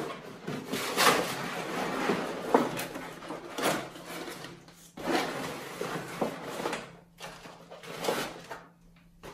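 A large stiff backdrop sheet rustling and scraping as it is handled and slid into a photo light box. There is a string of separate rustles and light knocks, and they grow sparse near the end.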